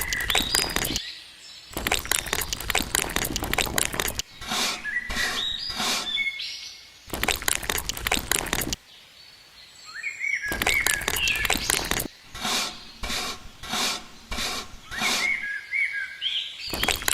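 Repeated bursts of dense crackling and rattling, each a second or two long, with birds chirping between and over them.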